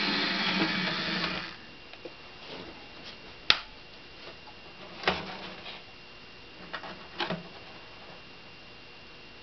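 Small electric motor and gearing of a model narrow-gauge locomotive whirring steadily, cutting off about a second and a half in as it stops on the turntable. Then a few sharp clicks and light knocks, the loudest about three and a half seconds in, as the hand-turned turntable, made from a CD and its case, is handled.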